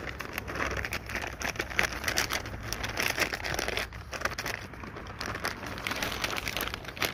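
Hands working a wet, sticky carp bait dough of flour, maseca, corn kernels and water: a dense run of small squishing, crackling sounds.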